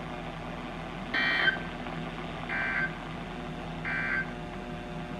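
NOAA Weather Radio SAME end-of-message signal: three short bursts of buzzy digital data tones about 1.4 seconds apart, marking the end of the alert message. A steady low hum from the radio lies underneath.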